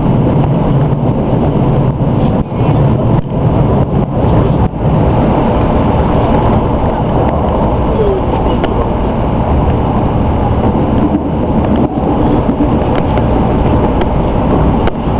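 Tokaido Shinkansen 300 series train running, heard from on board: a loud, steady low rumble of wheels and running gear, with a few brief knocks now and then.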